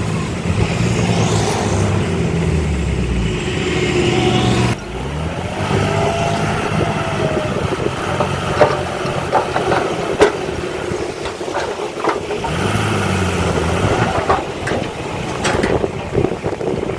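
Diesel engines of heavy earthmoving machinery running and revving, with a string of sharp clanks and knocks in the second half.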